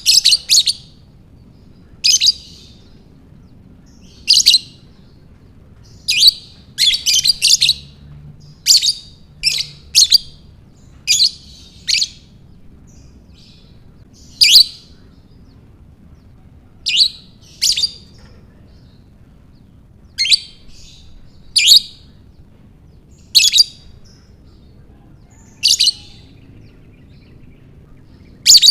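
Lovebird giving short, sharp, high-pitched chirps, singly or in pairs every one to two seconds, with a quicker run of chirps about a quarter of the way in.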